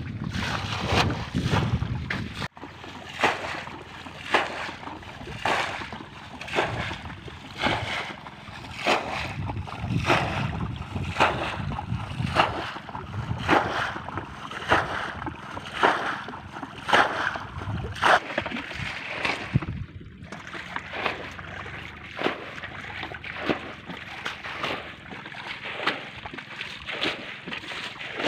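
Muddy ditch water being bailed out by hand with a metal bowl: a splash about once a second as each bowlful is scooped and flung out, with wind on the microphone.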